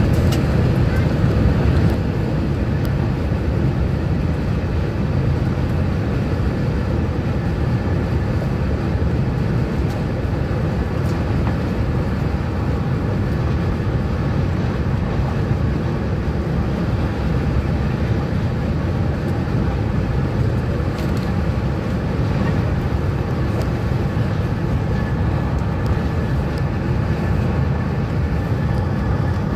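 Steady low rumble of a TGV high-speed train running at speed, heard from inside the passenger car.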